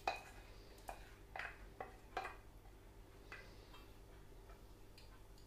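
Wire balloon whisk clinking and tapping against a stainless steel mixing bowl while melted chocolate is folded into whipped cream: a few light, irregular taps that thin out after about three seconds.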